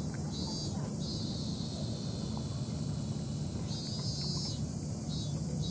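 Cicadas shrilling in a summer chorus, pulsing about twice a second, held as one steady drone for a few seconds in the middle before pulsing again. A steady low rumble runs underneath.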